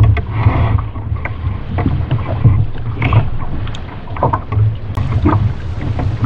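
Wind buffeting the microphone in a steady low rumble, with choppy water slapping against a plastic fishing kayak's hull and scattered short knocks and taps from handling the net and rod.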